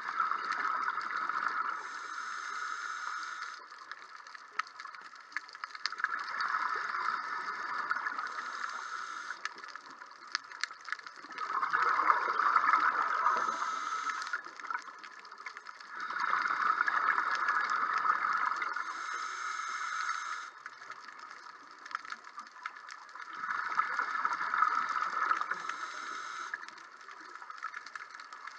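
Scuba regulator breathing underwater, repeating about every five to six seconds. Each breath is a burst of gurgling exhaled bubbles with a short hiss from the regulator.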